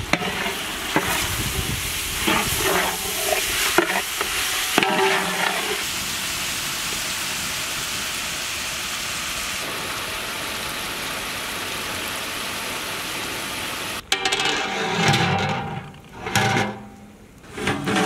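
Mutton frying in hot ghee with onions and spices in a large aluminium pot, sizzling steadily, with a metal ladle stirring and scraping in the pot during the first few seconds. Near the end the sizzle cuts off abruptly and gives way to a different sound with pitched tones.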